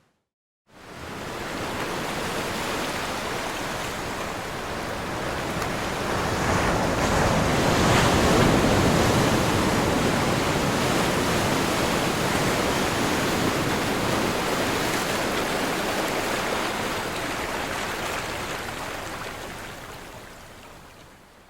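Ocean surf: waves crashing and rushing as one continuous wash of noise. It comes in suddenly just after a moment of silence, swells to its loudest about a third of the way through, then slowly fades out near the end.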